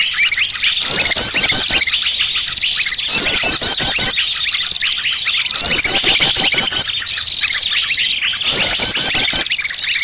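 Bird-lure recording of many small birds' calls layered into a dense, noisy chatter: rapid chirps and trills over a steady high whistle, with a burst of quick high trills repeating about every two seconds.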